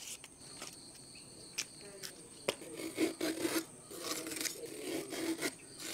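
A tender bamboo shoot being peeled and sliced into rings with a knife: scattered crisp scrapes, rips and clicks, busier in the second half. A steady high insect chirr runs underneath.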